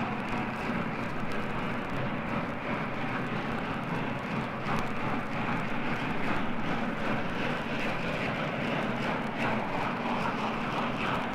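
Steam-hauled train running, heard as a steady, even noise of moving train without any whistle, played from an old vinyl LP recording that dulls the highest sounds.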